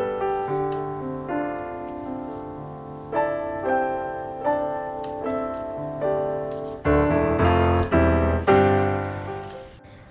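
Background piano music: chords and melody notes struck and left to ring, with a few heavier low chords near the end before the music cuts off.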